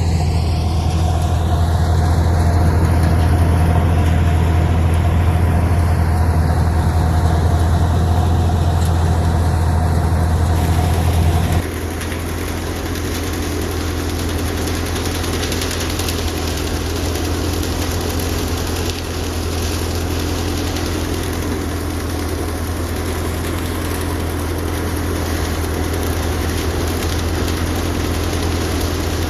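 Sonalika DI 42 RX tractor's diesel engine running steadily with a deep, even hum. About eleven seconds in the sound changes abruptly to a somewhat quieter, steady engine note.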